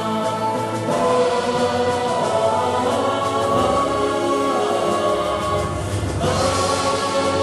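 A choir singing a march song with sustained notes; a new, fuller phrase begins about six seconds in.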